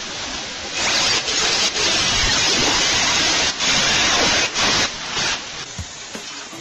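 Handheld angle grinder with a cut-off disc cutting into a steel bar: a loud, steady grinding noise broken by a few short pauses, which stops about five seconds in.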